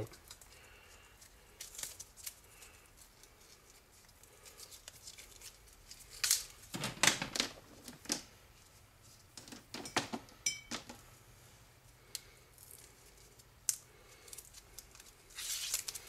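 Scattered rustling and clicking as electrical cable and its stripped plastic sheathing are handled on a workbench, with louder clusters of rustles about six to seven seconds in and again around ten seconds.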